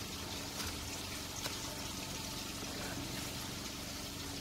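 Kitchen knife slicing through soft peeled tomatoes onto a plastic cutting board, giving a couple of faint taps, over a steady background hiss and a low hum.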